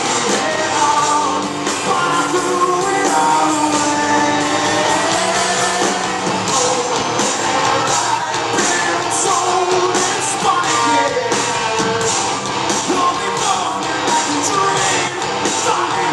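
Live rock band playing: electric guitars, a drum kit and a lead vocal, heard from the audience in a large hall.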